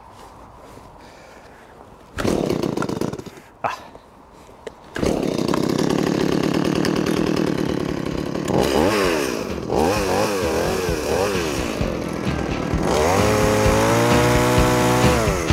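Petrol two-stroke chainsaw being started: a short burst about two seconds in, then it catches about five seconds in and runs. It is revved up and down several times, then held at a higher steady speed and let back down near the end.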